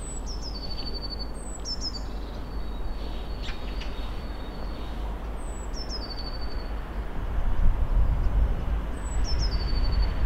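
A songbird singing a short repeated phrase, high notes stepping down into a brief trill, about four times. Under it runs the low rumble of an approaching diesel freight train, which grows louder over the last few seconds.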